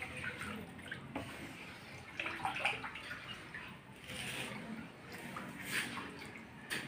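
Wooden spatula stirring a thin ube (purple yam) mixture in a large metal wok: irregular wet sloshing and swishing, with a light knock about a second in.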